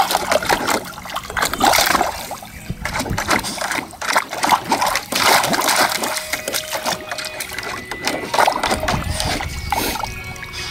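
A Boston Terrier pawing and digging at the water of a shallow plastic kiddie pool: repeated, irregular splashing and sloshing.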